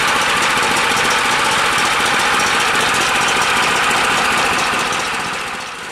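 Euro Motor 11 HP single-cylinder petrol engine running steadily, just started on the second pull after years out of use. Its sound dies down near the end.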